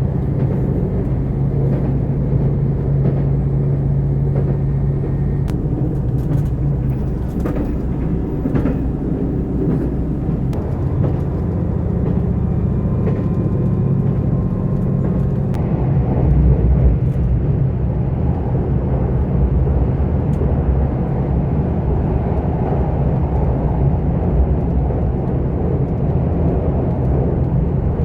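Steady low running noise of a moving train, changing in tone about fifteen seconds in.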